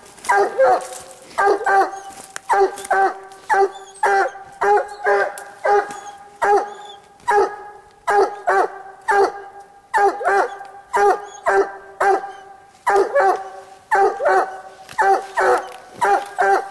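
Walker coonhound barking treed: a steady chop of short, pitched barks, about two a second, often in pairs, the tree bark that signals it has a raccoon up the tree.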